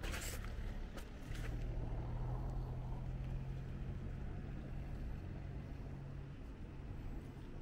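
A passing motor vehicle's engine, a low steady hum that comes in about a second in, rises slightly in pitch and fades out near the end. There is a brief scuff at the very start.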